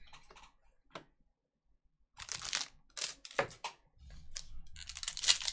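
Trading cards being handled and set down on a table mat: a few light clicks, then two short brushing, sliding sounds. Near the end comes a rising crinkle as the foil wrapper of a card pack is handled.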